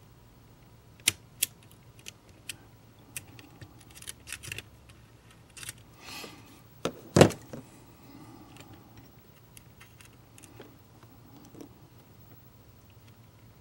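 Pliers and small metal parts being handled against a model passenger car's plastic body: a scatter of sharp clicks and taps, with a louder clack about seven seconds in.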